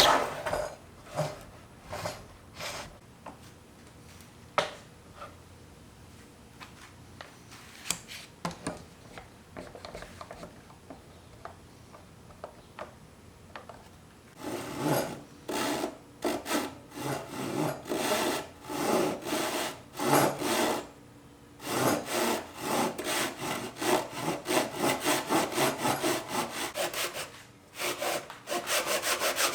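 Scattered knocks and clicks as a cypress board is handled, then a hand tool is worked back and forth across the wood in even strokes, about two or three a second, quickening near the end.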